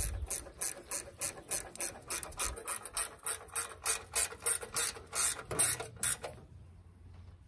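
Flex-head ratchet spanner ratcheting in quick back-and-forth strokes, about three or four rasping clicks a second, stopping about six seconds in.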